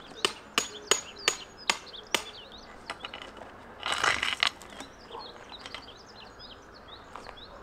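Six sharp knocks in a row, about 0.4 s apart, in the first two seconds, then a short rustling burst about four seconds in, with birds chirping throughout.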